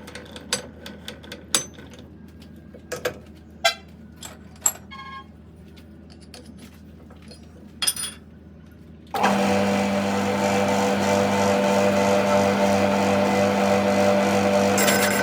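Scattered sharp clinks and knocks of metal being handled, then about nine seconds in a workshop machine starts suddenly and runs loud and steady with a strong hum.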